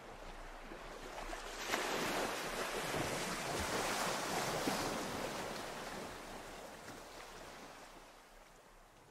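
A soft rushing noise swells up about two seconds in and then slowly fades out.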